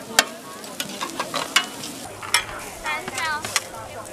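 Noodles sizzling in a large, hot wok while a metal spatula tosses them, with sharp clanks and scrapes of the spatula against the pan.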